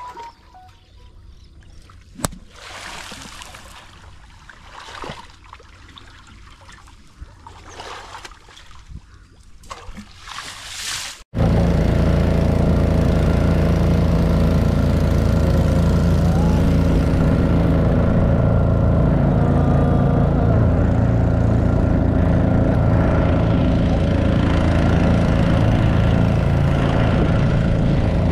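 Water trickling and splashing, with a few sharp clicks, then an abrupt cut about eleven seconds in to a boat engine running steadily with a loud, even drone.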